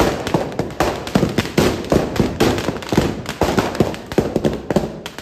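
Firecrackers packed inside a burning Ravan effigy going off in a rapid, irregular string of sharp bangs and crackles, several a second without a break.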